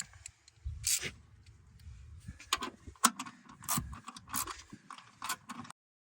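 Ratchet wrench with an 18 mm socket loosening seat-bracket bolts: several short bursts of clicking and scraping, spaced irregularly.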